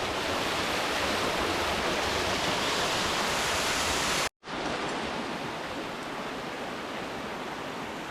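Steady rushing of falling water in a canyon creek. It breaks off for an instant a little over four seconds in and resumes slightly quieter.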